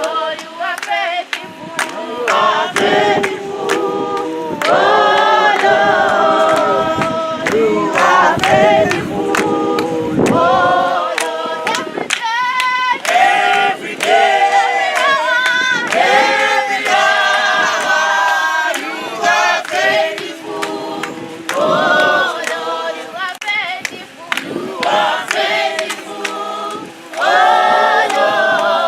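A group of people singing a praise song together without instruments, with frequent sharp clicks throughout.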